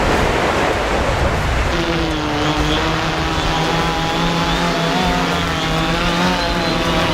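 Fishing drone's propellers humming with a slightly wavering pitch, over a steady rush of wind noise. The hum comes in about two seconds in.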